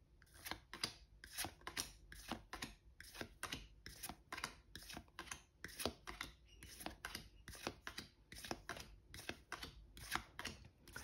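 Paper trading cards flicked one by one from the front of a hand-held deck to the back. Each card gives a short, faint snap, about two or three a second.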